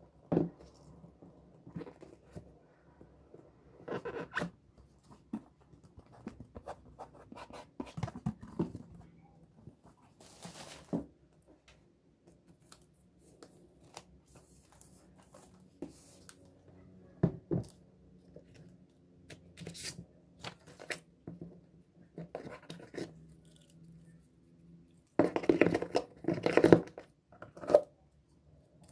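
Rustling, scraping and light knocks of a laptop's cardboard packaging being handled: the box opened, the MacBook Pro lifted out, and the accessory tray uncovered. A louder stretch of rustling and scraping comes near the end.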